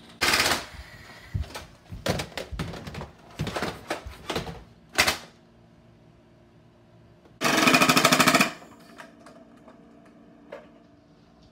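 A loud crack at the start, then scattered sharp clicks and knocks for about five seconds. After about seven seconds comes a rapid-fire burst of shots lasting about a second, roughly a dozen a second.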